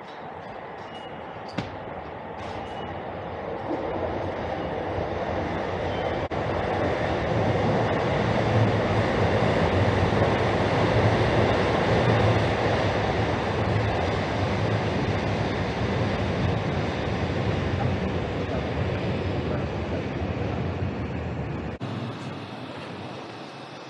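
A train passing on the tracks beside the station: a rumbling noise that swells to a peak and then fades away.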